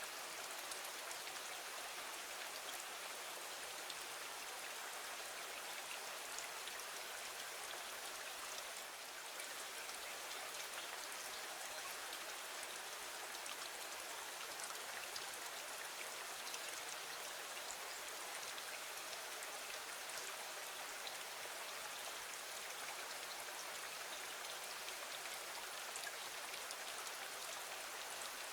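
Steady rain falling against a window, an even hiss sprinkled with light ticks of individual drops.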